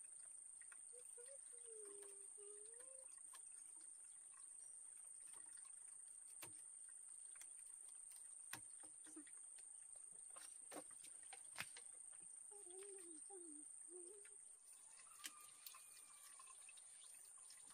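Faint outdoor ambience: a steady high-pitched insect drone, scattered light clicks, and two short spells of faint wavering calls, near the start and about two-thirds of the way through.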